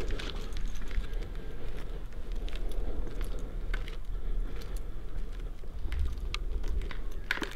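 Footsteps, with scattered irregular crackles and clicks over a steady low rumble.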